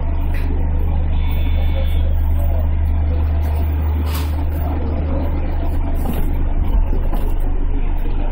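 Steady low hum inside the cab of a JR 211-series electric train standing at a station platform, with faint voices from the station and a short click about four seconds in.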